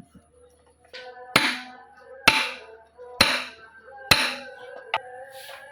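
Background music with held tones and a steady beat: four strong, sharp hits a little under a second apart, then lighter hits near the end.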